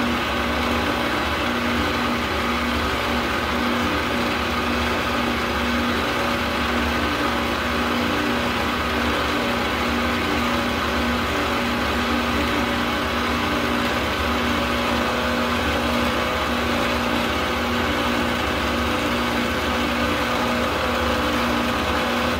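Milling machine spindle running steadily at about 1000 RPM, turning a ball-bearing edge finder, a steady hum with a few held tones; it winds down right at the end as the spindle is switched off.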